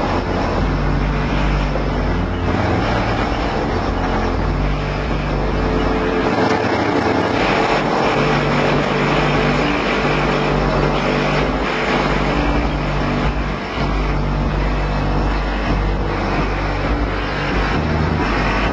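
Competition car audio system's subwoofers playing loud, bass-heavy music, heard from outside the car, the low bass notes changing every second or two.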